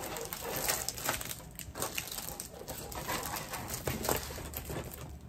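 Plastic packaging of a diamond painting kit crinkling and rustling as it is handled, with scattered small clicks and taps.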